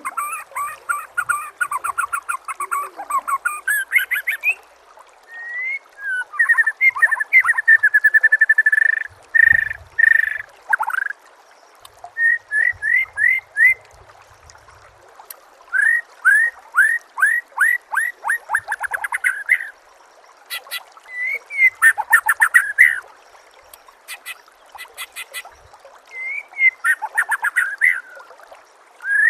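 White-rumped shama (murai batu) singing a run of varied phrases of fast repeated notes and trills, loud and clear, with short pauses between the phrases.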